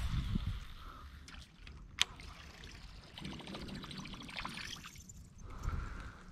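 Faint trickling and lapping of water around a kayak, with a single sharp click about two seconds in.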